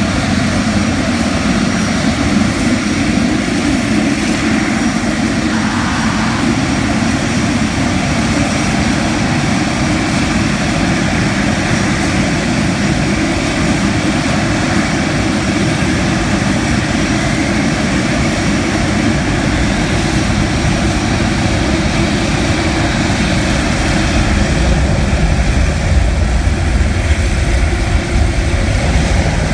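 Jet airliner engines running loud and steady, a deep rumble that swells about 24 seconds in.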